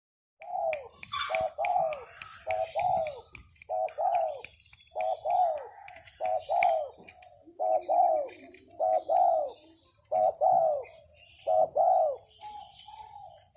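Spotted dove (derkuku) cooing over and over, each coo a quick pair of notes that falls in pitch, about one every second and a half. Faint high chirps of small birds sound in the background.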